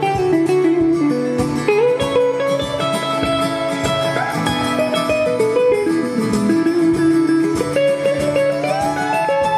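Live duet of a steel-string acoustic guitar and a hollow-body electric guitar: fast rhythmic picking and strumming with sustained lead notes that slide in pitch.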